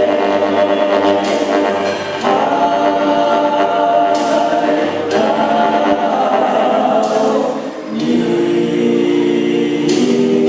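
Choir singing a slow sacred song in long held chords, the harmony shifting about every three seconds.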